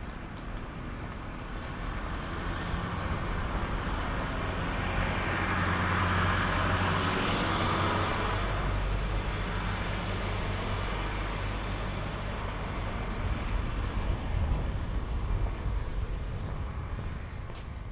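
A road vehicle passing by: tyre and engine noise swells to a peak about seven seconds in, then fades, over a steady low rumble.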